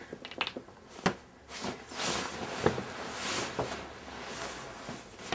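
Bedding rustling as people shift on a bed, with a few soft knocks.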